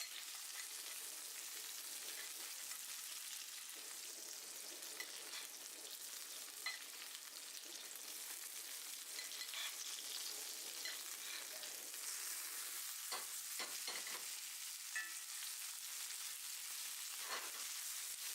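Ribeye steak searing in butter and oil in a skillet: a steady sizzle with scattered pops of spitting fat. A few louder crackles come about thirteen and seventeen seconds in.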